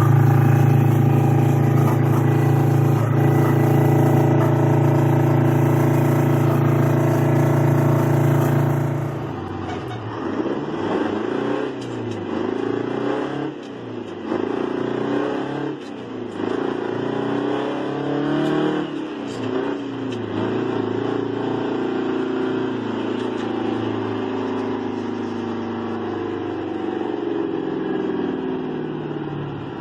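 Straight-piped 8V71 Detroit Diesel two-stroke V8 in a 1980 GMC General semi, first held loud at a steady high rpm. It drops off about nine seconds in, then climbs and falls in pitch again and again as the truck shifts up through the gears. It finally settles into a steadier, slowly falling drone.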